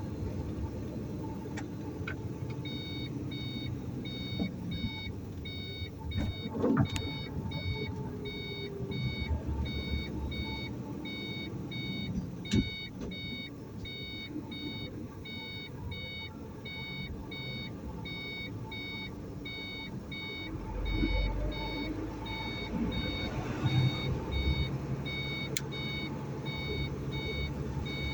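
A vehicle's electronic warning beeper sounds about twice a second over the low, steady rumble of an engine, starting a few seconds in. There are a few sharp clicks along the way.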